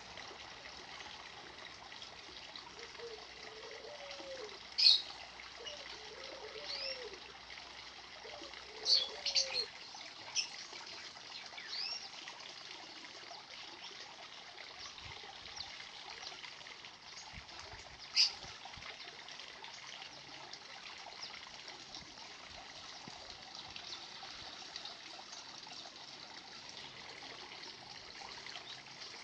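Birds calling over a steady trickle of running water. A few short, sharp chirps stand out, loudest about five seconds in, around nine to ten seconds, and again about eighteen seconds in. Three low notes that rise and fall come in the first ten seconds.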